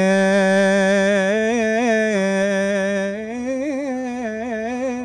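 A man singing unaccompanied in Arabic style: a long, unbroken held vocal line with quick wavering ornaments. It climbs a little higher and grows more ornamented after about three seconds.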